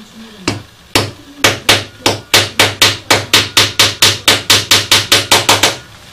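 Small hammer tapping a thin cut brass motif lying on a wooden board: two single taps, then a steady run of about four sharp taps a second that stops near the end.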